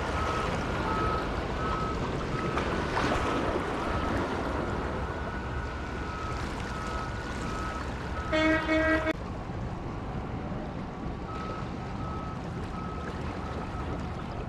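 Steady wind and surf noise on a rock jetty, with a faint high beep repeating on and off. Just past eight seconds in comes a short, loud horn-like tone lasting under a second.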